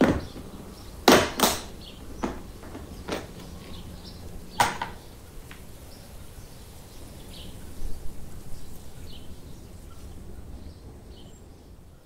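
Clear plastic food container set down on a countertop, then a series of sharp plastic clicks as its snap-lock lid clips are flipped open and the lid is lifted off. After that only faint small handling ticks over a low steady background.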